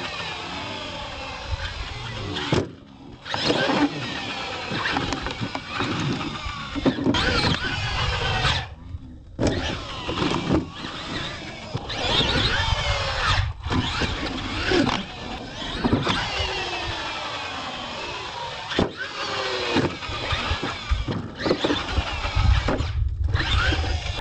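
Radio-controlled monster trucks' electric motors and gears whining, the pitch sweeping up and down as the throttle is worked, mixed with knocks from landings and tyres on dirt. The sound breaks off abruptly a few times.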